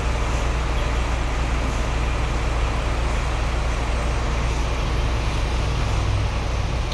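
Sawmill machinery running steadily: a deep, constant engine hum under an even wash of mechanical noise.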